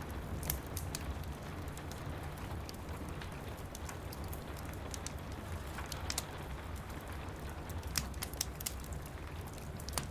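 Steady rain pattering over a low rumble, with a wood fire crackling in sharp, irregular pops, several coming in quick clusters.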